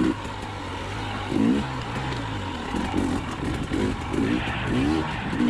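Two-stroke dirt bike engine under way on a trail, its pitch climbing and dropping again and again as the throttle is worked.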